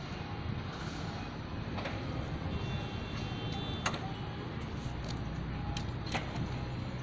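A few sharp clicks and knocks over a steady background noise as the side cover of an electric reach truck's battery compartment is unlatched and opened; the loudest click comes about four seconds in.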